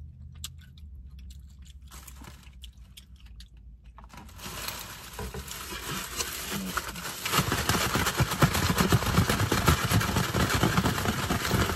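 Paper food wrapper crinkling and rustling, with a plastic takeout container being handled. The sound starts about four seconds in and gets louder from about seven seconds in.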